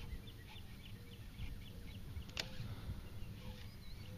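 Low rumble of wind and handling on the microphone, with a run of quick high chirps in the first two seconds and one sharp click about two and a half seconds in.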